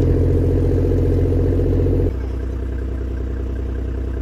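Four-wheel-drive's engine running steadily while driving; the sound drops a little and settles about two seconds in.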